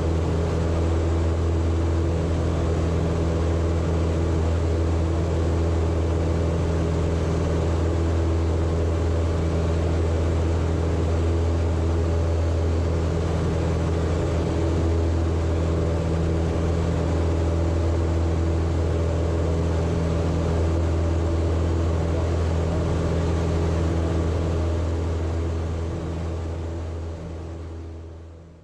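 Cub Crafters Carbon Cub FX3's 186 hp four-cylinder fuel-injected CC363i engine (Lycoming YIO-360) and Hartzell composite constant-speed propeller running steadily at cruise power, about 2490 rpm, heard from inside the cockpit: a steady low drone, fading out near the end.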